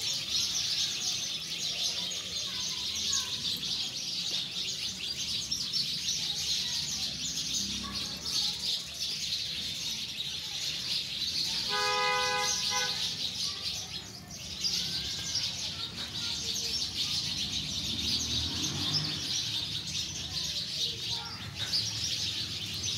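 Birds chirping over a steady high hiss of outdoor ambience. A vehicle horn sounds once, about a second long, around halfway through.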